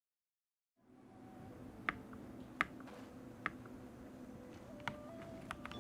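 After a brief cut to silence, a low steady hum with about five sharp, separate clicks at irregular intervals: single key presses on a mechanical keyboard fitted with lubed Akko CS Jelly Pink switches.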